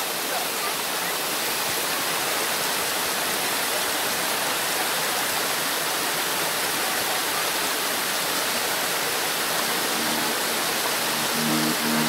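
Waterfall pouring down a rocky cascade, a steady rush of falling and splashing water. Music comes in faintly near the end.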